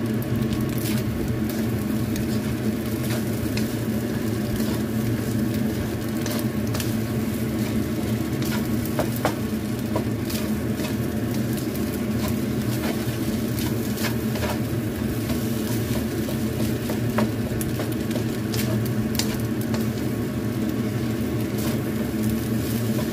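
Fried rice sizzling in a non-stick wok while a wooden spatula stirs and tosses it, with irregular light scrapes and taps of the spatula against the pan over a steady low hum.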